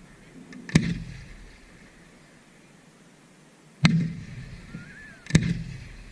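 Aerial firework shells bursting: three sharp bangs, about a second in, near four seconds and near five and a half seconds, each followed by a fading low rumble.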